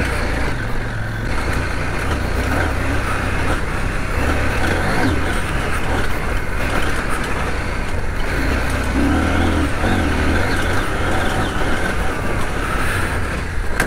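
CF Moto 800MT Touring's 799 cc parallel-twin engine running steadily under way off-road, mixed with tyre noise on a loose gravel track and wind rush.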